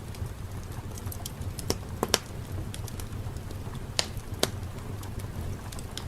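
Fireplace crackling over a low steady rumble, with a few sharp pops of burning wood, two close together about two seconds in and two more about four seconds in.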